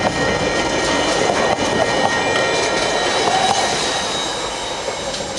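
Freight train's container flat wagons rolling past, wheels clacking over rail joints, with thin steady high-pitched tones above the rumble. The sound eases off near the end as the last wagons go by.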